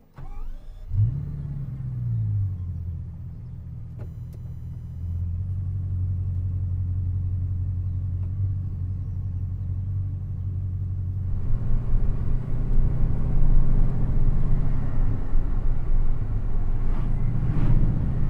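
The Bugatti Chiron Sport's quad-turbo W16 engine fires up with a brief rise and fall in revs, then idles steadily. About eleven seconds in it gets louder as the car pulls away and drives off.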